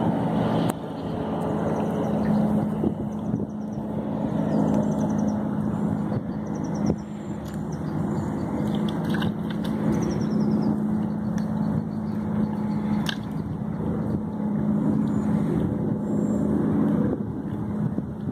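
A distant engine running steadily with a low hum over outdoor background noise; the hum stops near the end. A few faint, short, high chirps come and go.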